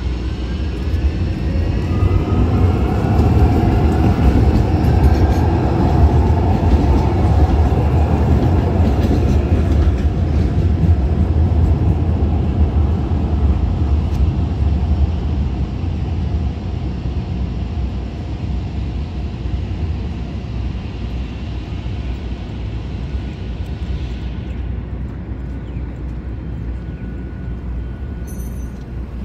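Calgary CTrain light rail train (Siemens S200 cars) passing at street level. A heavy, low rumble of steel wheels on rail carries a gliding whine on top, loudest in the first half and then slowly fading as the train moves away.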